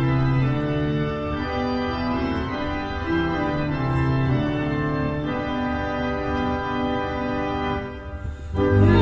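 Organ playing a hymn introduction in slow, held chords, breaking off briefly near the end.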